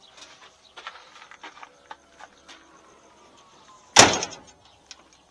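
Faint clicks and handling noises, then one loud slam about four seconds in with a short ringing decay: the trunk lid of a 1959 Ford Fairlane 500 being shut.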